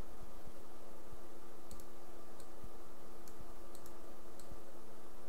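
A few scattered light clicks at a computer, irregularly spaced, over a steady low hum.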